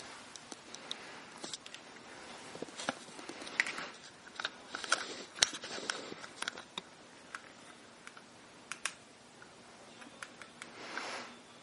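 Handling noise from a handheld camera and light rig: scattered sharp clicks and rustling, busiest in the middle, with a short rustle near the end.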